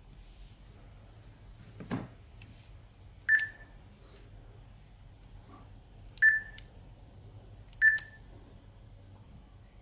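Touchscreen of an RCD330 car head unit giving three short beeps at one steady pitch as it is tapped, spaced about one and a half to three seconds apart, each starting with a click. A soft thump comes shortly before the first beep.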